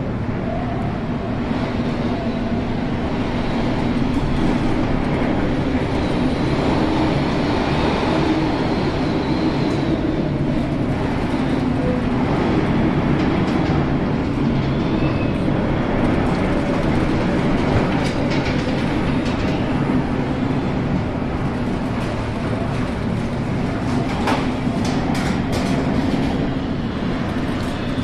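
Steady rumbling noise of storm wind and heavy seas heard aboard an oil tanker in a gale, with a low steady hum beneath it. A few sharp clicks come near the end.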